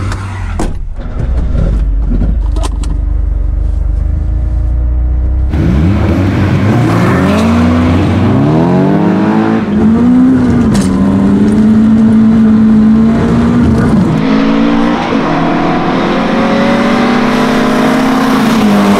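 Audi 80 five-cylinder turbo engine sitting at a low rumble, then launching about five seconds in: the revs climb and fall several times, then it pulls steadily through the gears. The start is one the driver calls really badly botched.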